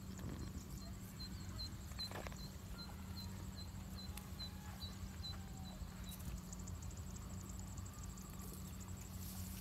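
A small bird's short high chirps, repeated about three times a second and stopping about six seconds in, over a low steady hum.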